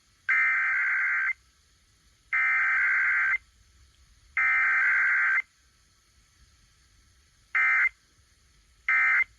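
Emergency Alert System SAME data bursts, the harsh two-tone digital screech of the alert code. Three long header bursts of about a second each come about two seconds apart, then, near the end, two short end-of-message bursts.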